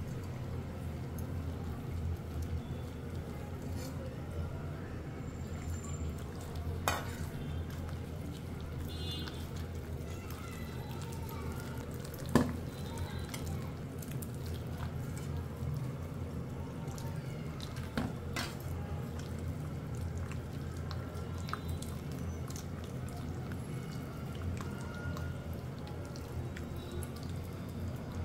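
Wheat-flour and jaggery-water batter being stirred and mixed by hand in a bowl, soft wet squelching and scraping, with a few sharp knocks of the bowl against the counter, the loudest about twelve seconds in, over a steady low hum.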